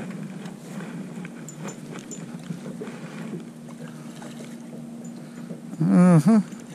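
A crappie being reeled in on a long spinning rod: faint ticks of the spinning reel and rod handling over wind noise on the microphone and a steady low hum. A short voice-like call about six seconds in.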